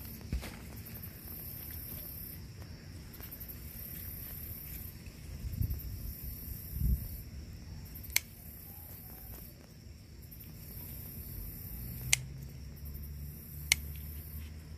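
Insects trilling high and steady, the trill stopping and starting again every few seconds. Three sharp clicks stand out in the second half, and a few soft low bumps come about halfway through.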